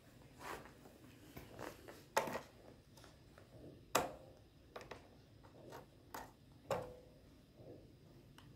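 Irregular plastic clicks and knocks from the toy tray of a baby walker being handled, with a few sharper knocks among softer taps.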